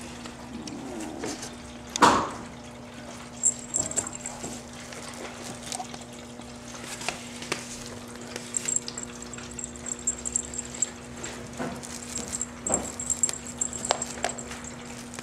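Ragdoll kitten's claws scratching and tapping at wooden louvered slats: scattered light clicks and scrapes, with one louder knock about two seconds in.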